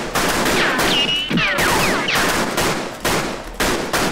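Battle gunfire: a rapid fusillade of rifle and machine-gun shots, with a few high falling whistles of passing or ricocheting bullets about a second in.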